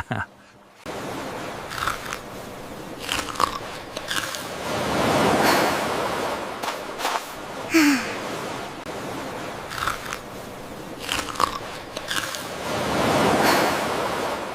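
Ocean surf washing onto a beach: a steady hiss that swells twice, about eight seconds apart, with a few short sharp sounds over it.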